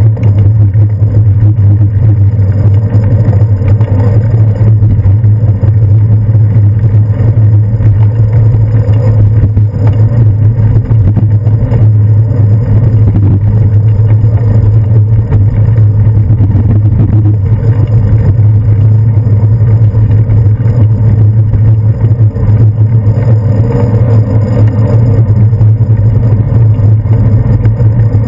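Loud, steady low rumble of a bicycle ride over city streets, picked up by a handlebar-mounted action camera in its housing, with motor traffic running alongside.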